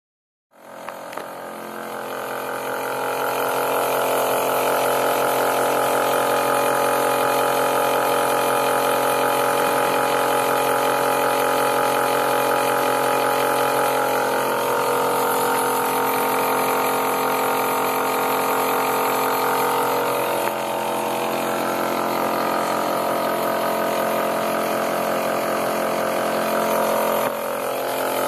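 K124A pump and its electric motor running steadily while pumping high fructose corn syrup: a steady mechanical hum made of many even tones. It swells in over the first few seconds and its tone shifts slightly about halfway through.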